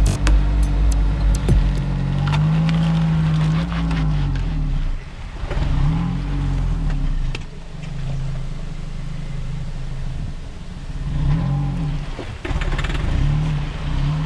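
A car engine running and revving up and down several times as a tyre rolls slowly over a whole watermelon and crushes it, with a few sharp cracks and squelches as the rind splits.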